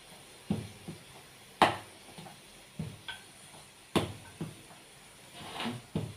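Wooden rolling pin rolling out naan dough on a steel plate: a string of irregular knocks and clatters as the pin comes down on the plate. The sharpest clacks come about a second and a half in and again about four seconds in.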